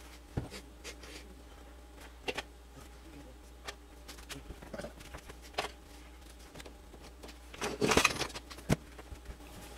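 Scattered knocks and clatters of kitchen cupboards, a dishwasher and dishes being searched through for a pan lid, with a louder burst of clatter near the end, over a steady low hum.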